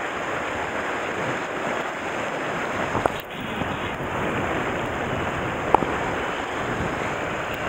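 Sea surf washing against the rocks below, with wind rushing on the microphone. Two short sharp clicks, about three and about six seconds in.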